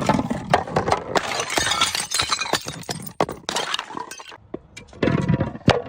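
Glass bottles smashing: a dense crash of shattering glass lasting about three seconds, then scattered clinks of shards, and another crash near the end.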